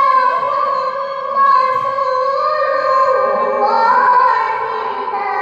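A young woman's voice reciting the Qur'an in melodic tilawah style into a microphone, holding a long high note, then stepping lower with ornamented turns about three seconds in.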